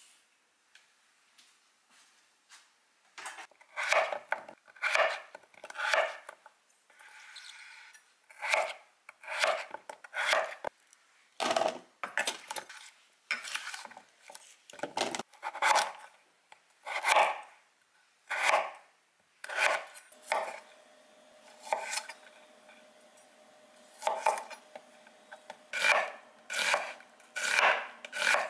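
Kitchen knife cutting potato and red onion on a wooden cutting board: slow, separate chops of the blade knocking the board, roughly one a second, starting a few seconds in.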